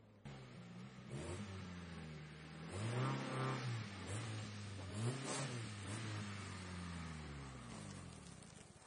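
Engine of an off-road 4x4 revving as it climbs through scrub, the revs rising and falling twice, about three and five seconds in, then easing off near the end.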